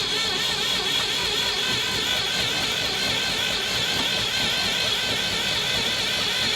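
Spark-ignition tractor engine being cranked over by its electric starter, a steady, loud, evenly pulsing churn. The engine has a new coil and points but a condenser that doesn't fit, and the owners say it is not firing.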